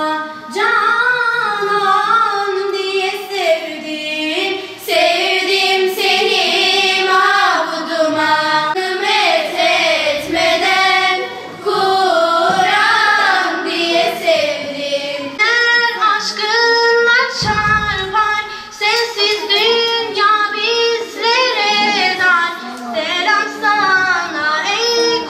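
Young girls singing a devotional song, one girl's voice leading through a microphone.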